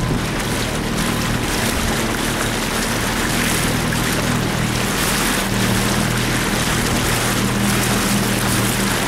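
A motorboat's engine running steadily at a constant speed, under the rush of wind on the microphone and water.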